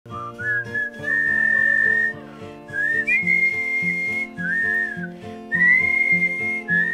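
A young girl whistling a tune in long held notes, phrase after phrase with short breaks, over a strummed acoustic guitar.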